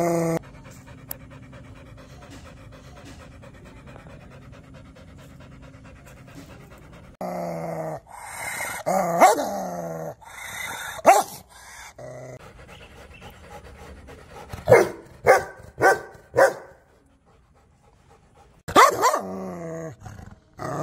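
Rottweiler growling, snarling and barking aggressively. After several quiet seconds, growls with falling pitch give way to sharp barks. Then comes a quick run of four barks about half a second apart, and one last snarling bark near the end.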